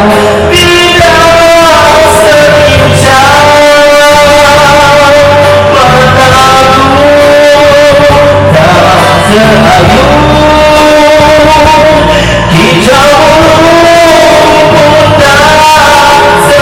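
Rock song with a male lead singer holding long sung notes over guitar and a band.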